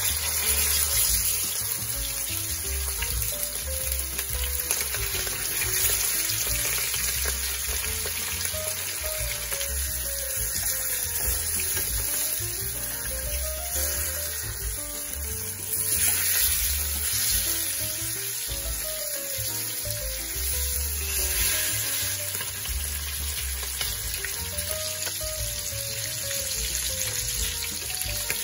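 Whole pomfret shallow-frying in hot oil in a pan, sizzling steadily. Background music plays underneath.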